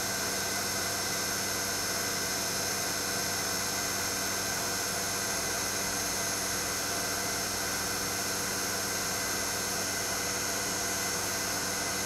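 A CNC router's vacuum hold-down pump running steadily: an even hiss with a constant hum of several steady tones that does not change.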